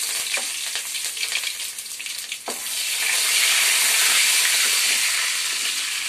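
Tempering of curry leaves, mustard seeds, urad dal and dried red chillies sizzling and crackling in hot oil in a kadai, stirred with a wooden spatula. The sizzle thickens and grows louder about three seconds in.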